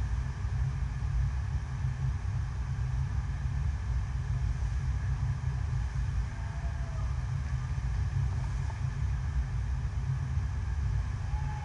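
Artificial surf wave machine: a continuous sheet of water rushing up the wave surface, heard as a steady low rumble.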